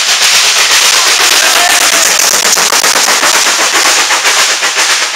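Steam locomotive 60163 Tornado, a three-cylinder Peppercorn A1 Pacific, pulling its train away: a rapid, even run of sharp exhaust beats over a constant steam hiss.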